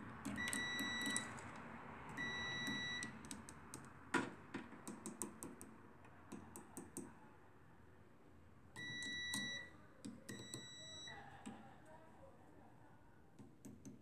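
Multimeter continuity tester beeping four times, each a steady high beep under a second long, as its probes close a path through the microwave oven's ground wiring; each beep signals continuity. Between the second and third beeps come a sharp click and a run of light ticks.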